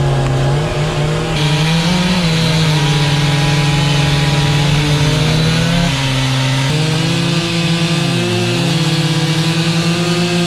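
Chainsaw engine running at high revs as it cuts through a log, its pitch dipping and recovering under load, with abrupt jumps in the sound where the footage is cut.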